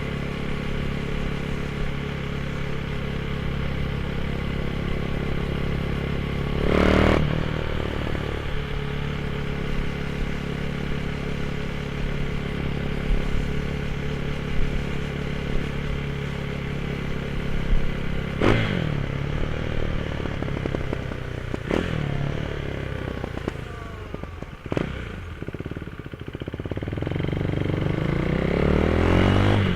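Motorcycle engine with a GPR aftermarket exhaust running at a steady pitch, with a few short louder blips along the way, then rising in pitch near the end as it revs up.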